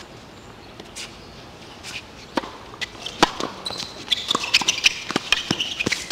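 A tennis ball being struck by rackets and bouncing on a hard court during a rally: a string of sharp, irregularly spaced pops that get busier and louder after about two seconds. From about halfway through there is also high squeaking.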